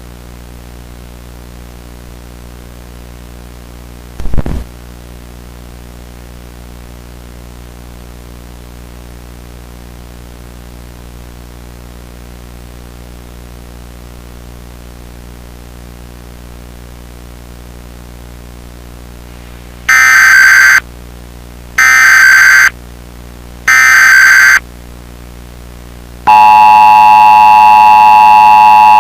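Emergency Alert System broadcast signal: after a steady low hum with a brief crackle about four seconds in, three short, loud screeching digital data bursts (the SAME header) play, and near the end the loud, steady two-tone EAS attention signal begins.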